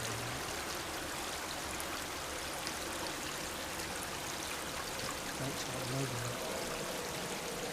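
A steady, even rushing noise with no distinct events, with two brief low hums, one at the start and one about five and a half seconds in.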